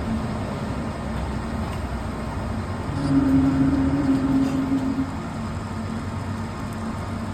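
Metal embossing roll machine running: a steady mechanical rumble, with a louder steady hum from about three to five seconds in.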